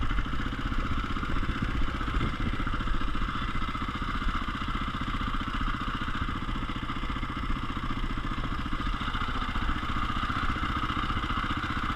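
KTM EXC enduro motorcycle's single-cylinder engine running steadily at low throttle as the bike rolls slowly along, heard close up from onboard, with no revving.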